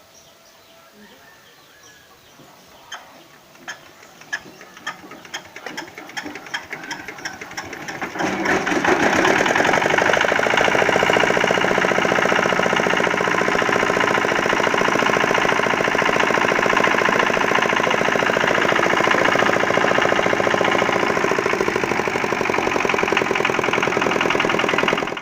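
Small diesel engine of a concrete mixer being hand-cranked, its clicks coming faster and louder as it spins up, then catching about eight seconds in and running steadily and loud until it cuts off abruptly.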